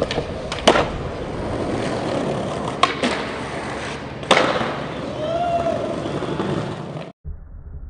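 Skateboard wheels rolling on concrete, with three sharp clacks of the board popping and slapping down on landing, the loudest about four seconds in. Near the end the sound drops out briefly and comes back duller and quieter.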